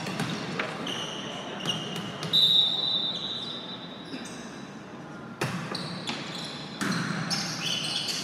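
Indoor volleyball sounds: a referee's whistle blows for about a second, two seconds in, and a ball bounces on the floor. A sharp smack a little after five seconds is the serve being struck, followed by short sneaker squeaks on the hardwood floor and another hit near the end.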